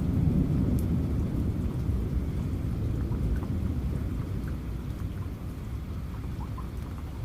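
A low rumble of thunder, loudest at the start and fading away over several seconds, over the steady hiss of rain falling, with a few scattered drips.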